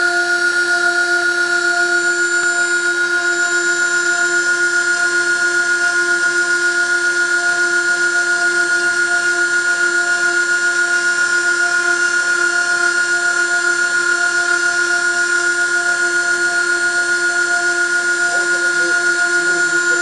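High-speed spindle motor of a CNC rotary-axis wood engraver running with a steady high-pitched whine, its small bit cutting into a slowly turning wooden cylinder.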